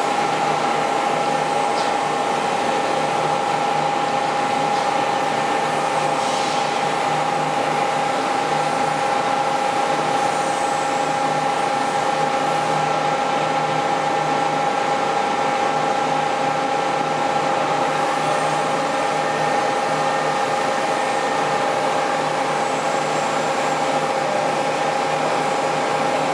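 Scharmann Heavycut 4.2 ram-type floor boring and milling machine running, a steady mechanical hum with a constant whine, while its headstock travels slowly down the column.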